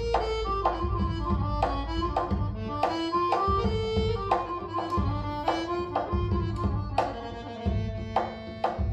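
Recorded music played over Monitor Audio Gold loudspeakers driven by a Luxman Class A amplifier: sharp drum strikes, a melody of held notes that steps up and down, and heavy bass underneath.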